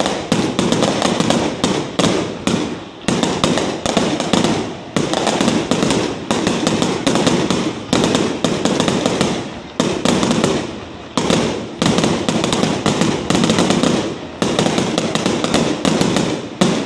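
Aerial fireworks going off in a rapid, near-continuous barrage of bangs and pops, many a second, with short lulls every few seconds.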